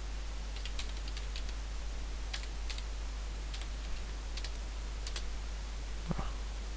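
Computer keyboard being typed on: a scattering of short key clicks, a quick run at first and then single strokes, over a steady background hiss and low hum. A low thump near the end.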